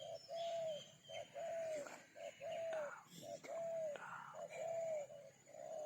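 A sirabi bird calling its medium-pitched song: a rapid string of short, arched hooting notes, about two a second, with faint higher chirps from other birds.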